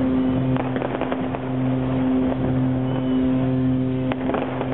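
Boat horns sounding together: one held low blast, with a lower horn sounding in short blasts about once a second. A few distant firework bangs come about half a second in and again near the end.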